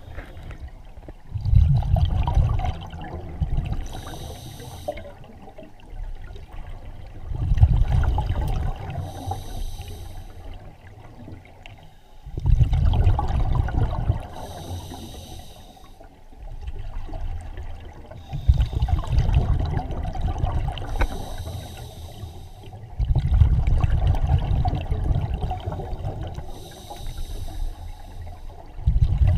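A scuba diver breathing underwater through an open-circuit regulator: a short hissing inhale followed by a longer burst of bubbling exhaust, repeating about every five to six seconds.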